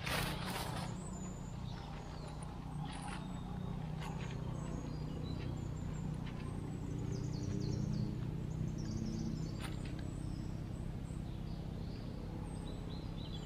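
Steady low hum with small birds chirping now and then, and a few short rustles of dry leaf litter being disturbed at the ground.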